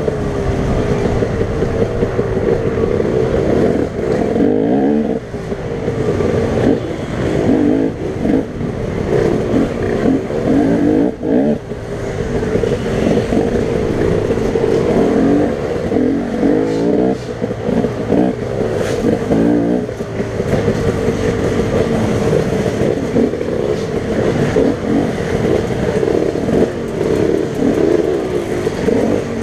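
Off-road trail motorcycle engine being ridden hard, revving up and falling back again and again as the throttle is opened and shut through the turns, heard from the rider's helmet.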